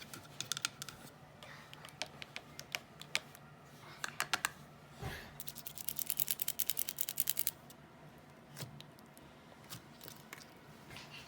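Slime being squeezed and worked by fingers with long glue-on nails, making a string of sharp clicks and pops, with a fast run of clicks a little past the middle.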